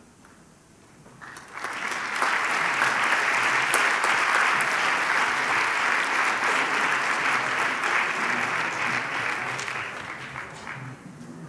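Audience applauding, starting about a second in, swelling quickly and tapering off near the end.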